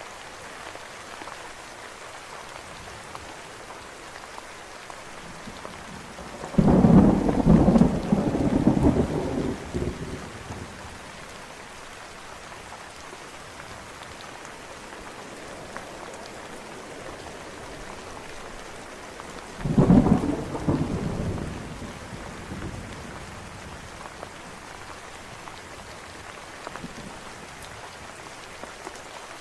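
Steady rainfall with two claps of thunder rolling over it, the first about a quarter of the way in and lasting several seconds, the second shorter, about two thirds of the way through.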